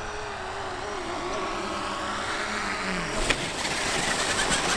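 RC model plane's propeller motor whining, its pitch wavering with the throttle and growing louder as it comes in. About three seconds in there is a thump as the monster-truck wheels touch down, followed by rolling noise on the grass.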